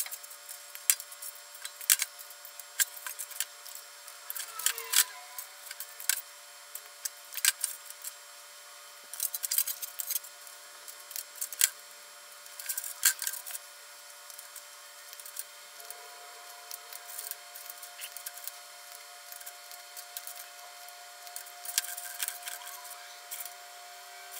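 Wire cutters snipping hook-up wire to length, sharp snips coming irregularly every second or two, sometimes several close together, with rustling of the wire and gloved hands between them.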